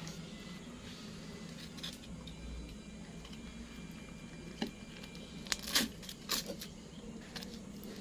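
A few short clicks and knocks, mostly bunched a little after the middle, over a steady low hum.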